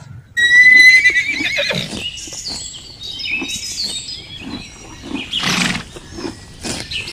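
A horse neighing: one loud whinny that starts high and wavers as it falls, followed by softer, fainter calls and a short noisy burst about five and a half seconds in.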